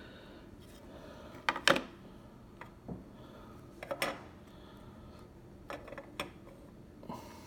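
Trading cards and their packaging being handled: a handful of short clicks and scrapes, the sharpest about a second and a half in and again near four seconds, over quiet room tone.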